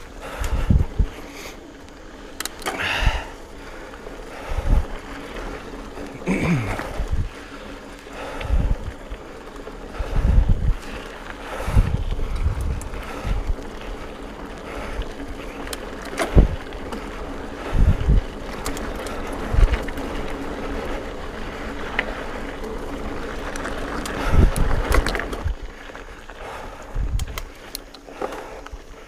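Mountain bike rolling downhill over a rough dirt trail: tyre noise with irregular thumps and rattles of the bike as it goes over bumps.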